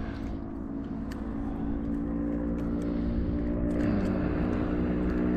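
An engine running steadily at an even pitch, slowly growing louder.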